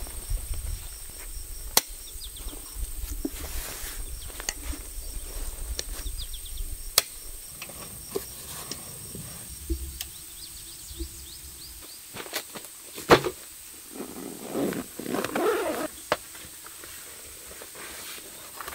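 Camping gear being handled inside a fabric tent room: scattered sharp clicks and knocks, one loud knock about two-thirds through. A burst of fabric and bag rustling follows soon after.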